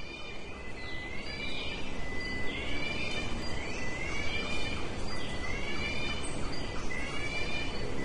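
Tropical forest ambience: an animal call repeated about once a second, each a short rising note with overtones, over a steady high-pitched whine and a dense, even hiss of the forest.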